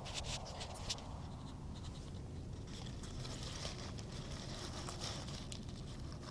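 Handling noise of a phone being set down in grass: rustling and scratching against the microphone, with a quick run of small clicks in the first second and a softer rustle from about three seconds in.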